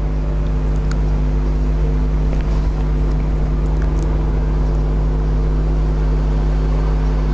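A loud, steady low hum with a buzzing drone of several fixed tones and a light hiss, holding level throughout.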